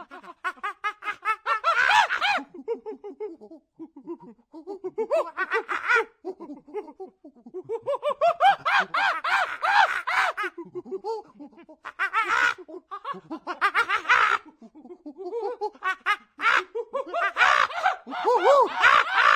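Human laughter in several separate bouts, each a quick run of short pitched pulses, with brief pauses between bouts.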